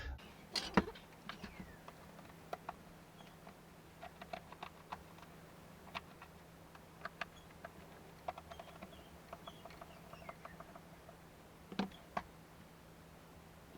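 Faint, scattered clicks and light taps of a part being handled and turned over, with a louder knock near the start and two more about twelve seconds in, over a low steady hum.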